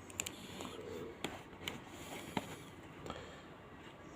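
Faint scattered clicks and light taps of small plastic parts being handled as a finger sensor's connector is fitted to a pulse oximeter.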